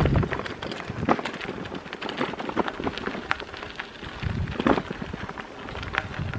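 Bicycle tyres rolling over a bumpy gravel path: a steady crackle of small irregular clicks. Low rumbles of wind buffet the microphone at the start, about four and a half seconds in, and near the end.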